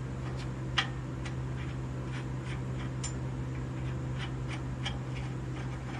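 Light metallic clicks and ticks from bolts and hand tools as an engine is fastened to an engine stand, coming at uneven spacing with one sharper click about a second in, over a steady low hum.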